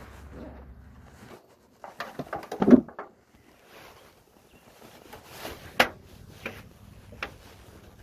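Knocks, scrapes and clunks of wooden beehive parts being handled as the hive is opened, the loudest clunk nearly three seconds in and a few sharp clicks later. A low hum stops just over a second in.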